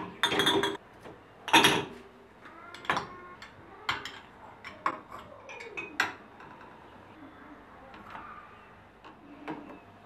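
Glass jars and ceramic cups clinking against each other and the wire racks of a dishwasher as it is loaded. The loudest ringing knocks come in the first two seconds, lighter clinks follow up to about six seconds in, and then only a few faint ticks.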